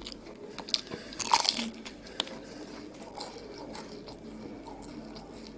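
Crisp phyllo pastry (Egyptian goullash) crunching and crackling as it is bitten and chewed, the loudest crunches in a burst about a second and a half in, then softer crackles of chewing.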